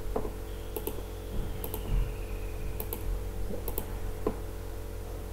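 Computer mouse clicking while selecting items on screen: single quick clicks, most heard as a close press-and-release pair, about one a second. A steady low electrical hum runs underneath.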